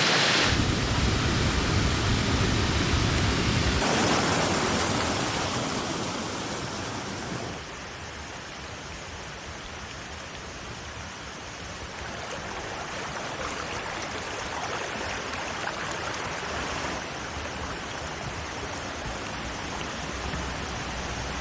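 Steady rushing noise of rain and running water, its texture changing abruptly several times.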